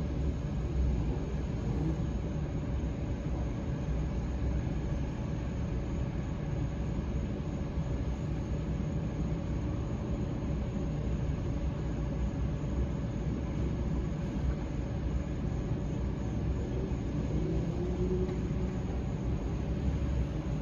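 Steady low rumble with a faint steady hum.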